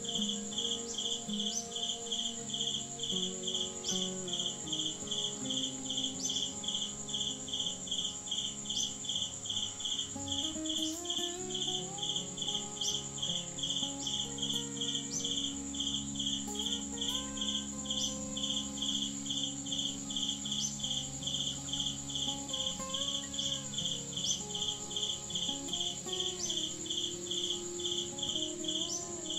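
Insects calling steadily in the trees: a fast, even pulsing chirp with a continuous high whine above it.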